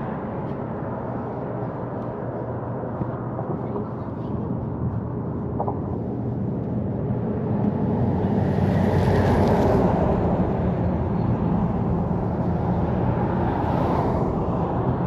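Road traffic with wind noise on the microphone: a steady rumble of passing vehicles that swells about eight seconds in and again near the end, with no horn.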